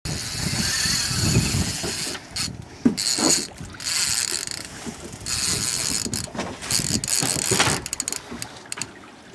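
Fishing reel's ratchet clicker buzzing as line is pulled off the spool by a hooked fish, in runs of about a second that stop and start several times.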